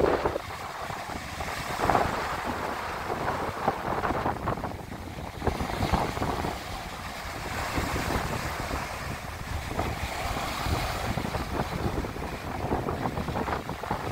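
Small waves breaking and washing up a dark gravel beach, the surf swelling and easing every few seconds, with wind buffeting the microphone.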